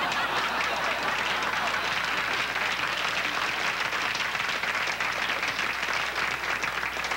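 Studio audience applauding: dense, steady clapping from many hands, easing slightly near the end.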